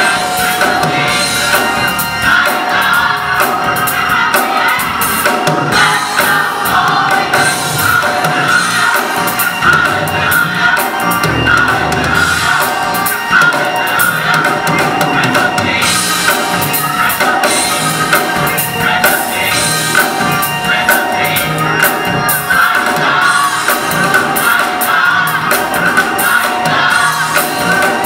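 Large gospel choir singing together, loud and continuous.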